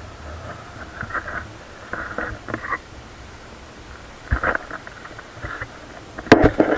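Choppy water splashing and slapping against a sail-driven kayak's hull in irregular bursts, over a low steady rumble, with the loudest splashing near the end.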